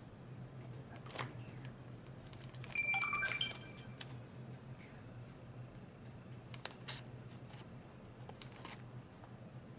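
Chopsticks clicking and tapping against a takeout food container, scattered light clicks, with a brief high squeak about three seconds in, over a low steady hum.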